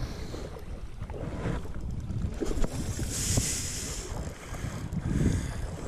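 Wind buffeting the microphone, with small waves lapping at the loch shore and a brief hissing rush about three seconds in.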